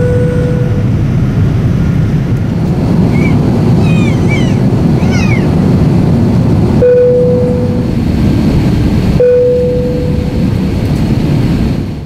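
Airliner seatbelt-sign chime: a single low 'bing' tone at the start, again about seven seconds in and again about nine seconds in, each ringing out for about a second over loud, steady cabin air and engine noise. About four to five seconds in, a few short high squeals rise and fall.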